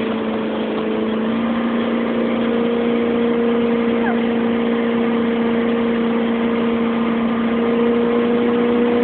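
Motorboat engine running at high speed, its pitch stepping up slightly about a second and a half in and then holding steady, over a continuous rushing noise.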